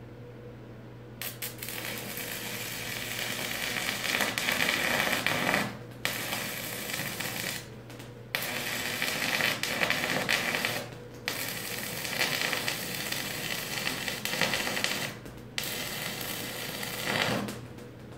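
Stick welding a steel post to a steel beam: the electrode's arc crackles in runs of a few seconds, broken by four brief pauses as the rod is lifted, starting about a second in and stopping shortly before the end. A steady low hum runs underneath.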